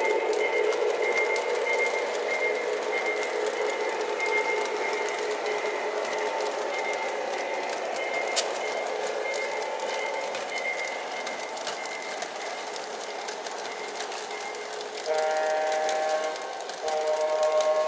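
Lionel O-gauge Rock Island Rocket train with two E6 diesel locomotives running steadily on Fastrack, its passenger cars rolling past with a steady whirring rumble. Near the end, the locomotive's horn sounds twice, a chord of several notes with a short break between the blasts.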